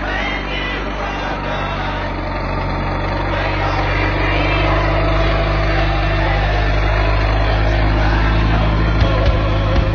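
Engine of a vintage tractor converted to screw-cylinder drive, running steadily through deep snow and growing gradually louder as it comes closer.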